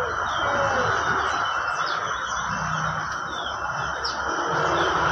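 Many small birds chirping at once: scattered short, high chirps and quick falling notes over a dense, constant din of bird calls.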